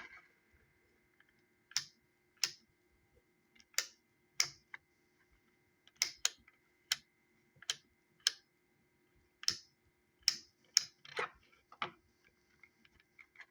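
About fifteen sharp plastic clicks at an uneven pace, from handling and clicking together a handheld digital multimeter as its screen repair is finished.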